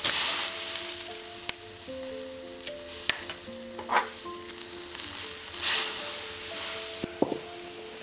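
Meatball soup boiling and hissing in a large wok as fresh greens are added and moved about, with a few light clicks. Background music with held notes plays underneath.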